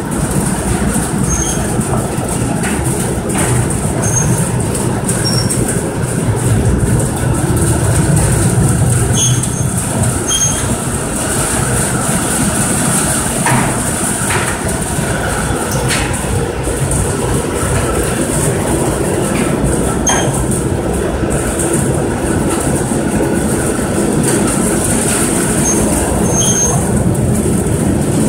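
Humphries belt manlift running: a continuous mechanical rumble and clatter as the belt and steps travel up the shaft, with brief high squeaks and a few clicks scattered throughout.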